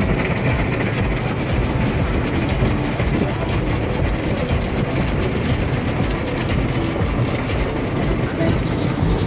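Automatic car wash heard from inside the car's cabin: water and soap spray drumming on the windshield and windows over a steady low rumble, with a rapid pattering throughout.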